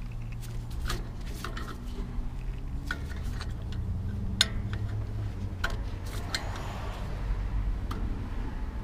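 Scattered light metal clicks and clinks of a hand tool working against a brake caliper, one sharper clink about halfway through, over a steady low hum.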